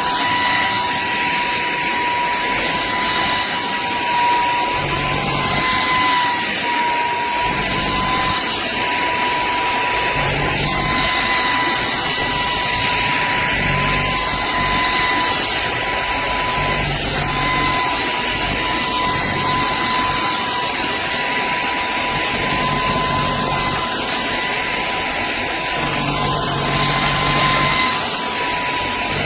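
Cordless stick vacuum running steadily, its motor giving a constant high whine over the rush of suction air.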